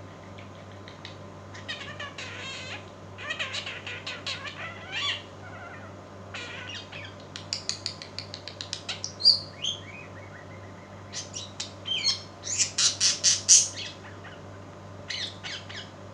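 Small pet birds chirping and squawking in quick runs of short, high calls, with short pauses between the runs; the loudest run comes near the end.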